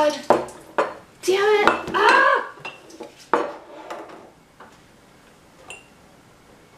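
Clinks, knocks and clatter of hard objects being handled on a wooden table while a cardboard box is opened, busiest in the first three seconds and thinning out after that. A few short, rising-and-falling pitched sounds, like a voice, come in about a second in.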